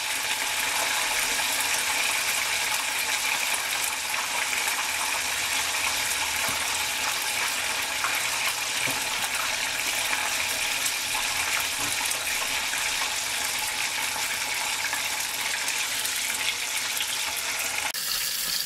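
Breaded chicken deep-frying in a pan of hot oil: a steady sizzle throughout, which changes abruptly near the end.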